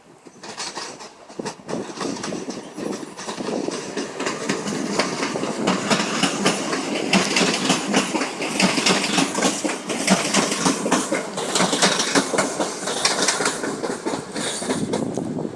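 Passenger train running along the station tracks, its wheels clattering over rail joints and points with a rapid run of clicks. It grows louder over the first few seconds, then stays loud and steady.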